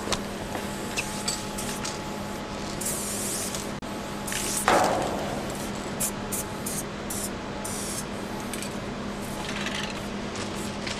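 Aerosol spray paint cans hissing in short bursts, with a steady low hum underneath and one loud knock about halfway through.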